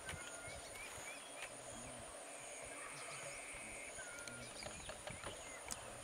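Marsh wildlife ambience. A steady high-pitched insect drone runs throughout, with a second insect trill switching on and off. Scattered short bird chirps, short low calls and a few sharp clicks are heard over it.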